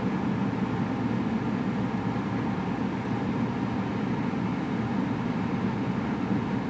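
Steady low rumble and hiss of car cabin noise, even throughout with no sudden sounds.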